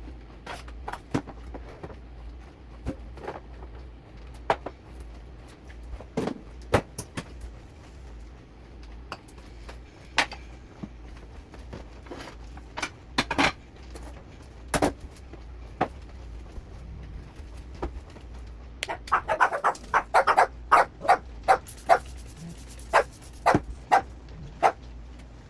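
Scattered knocks and clatter from household chores. A dog barks in a quick run of barks starting about nineteen seconds in.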